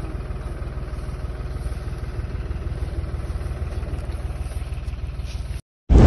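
An engine idling steadily with a low, even throb; it cuts off suddenly near the end.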